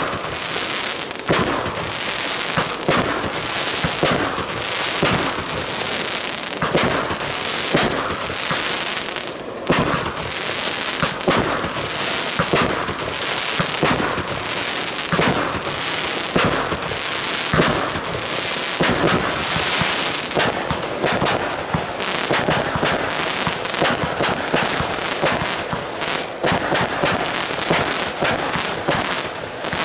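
Fireworks battery firing a rapid, unbroken sequence of aerial shots: launch thumps and bursting stars about one or two a second, over a continuous hiss.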